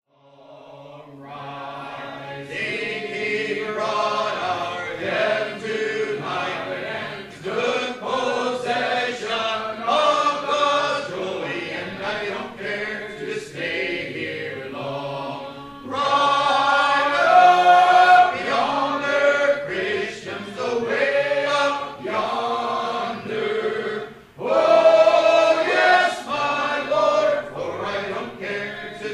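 A church congregation singing a slow hymn a cappella, many voices holding long notes together in phrase after phrase. It fades in over the first couple of seconds.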